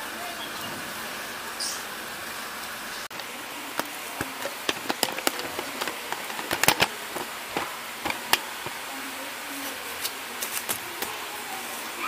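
Steady hiss of falling rain, with irregular sharp taps and clicks from about three seconds in until near the end.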